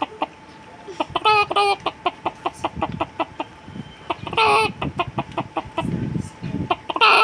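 A person imitating a hen's clucking and cackling: a steady run of short clucks, about four a second, broken by a loud, longer cackle about a second in, again near the middle and once more at the end.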